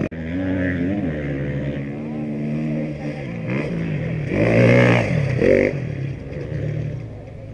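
Off-road racing motorcycle engine revving hard as the bike accelerates along the dirt track. The pitch climbs and drops through gear changes, and it is loudest as the bike passes about four and a half to five and a half seconds in.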